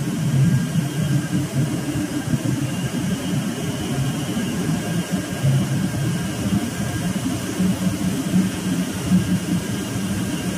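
Ballast water treatment system's pumps and electric motors running: a steady low machinery drone with a faint thin whine above it.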